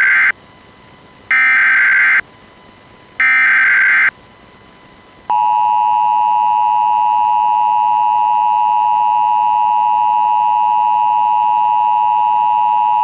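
Emergency Alert System broadcast: three short, buzzing blasts of coded SAME header data, the first already under way, each just under a second and about a second apart. About a second later comes the EAS attention signal, a loud, steady two-tone beep held for about eight seconds, which announces that an emergency message follows.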